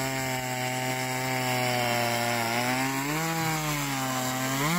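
A small engine running steadily; its pitch lifts slightly about three seconds in and climbs sharply near the end, as in a rev.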